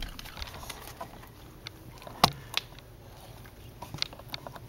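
A few light clicks and taps, the sharpest about two seconds in, from a West Highland White Terrier moving about at a sliding glass door.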